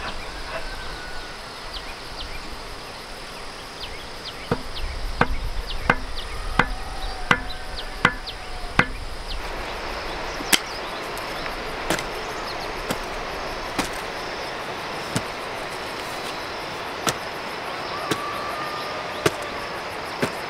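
Hand hoe's metal blade chopping into tilled soil in repeated sharp strokes, about one and a half a second for a few seconds, then slower and more spread out, over a steady chorus of insects.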